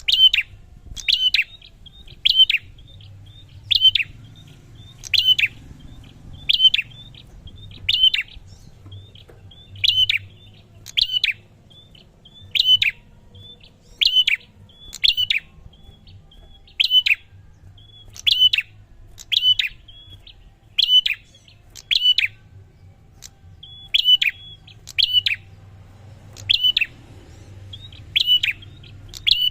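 A prinia (prenjak) calling over and over: a sharp, high note about every one and a half seconds, each with a quick downward sweep. It is the steady repeated call used to draw other prenjak into responding.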